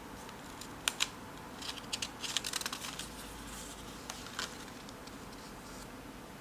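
Handling of a spiral-bound paper sketchbook: two quick clicks about a second in, then a short spell of paper crackling and rustling as a page is taken and turned over.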